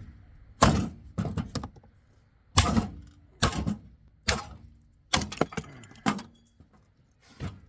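Repeated hard blows, about ten at uneven spacing, struck on an old mixing board to knock it apart for scrap, each a sharp metallic bang with some rattle.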